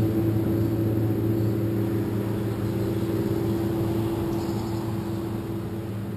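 A steady, low engine drone that slowly fades.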